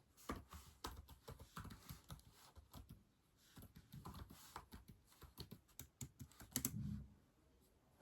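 Typing on a keyboard: quick runs of soft key clicks, with a brief pause about three seconds in and a heavier thud near the end.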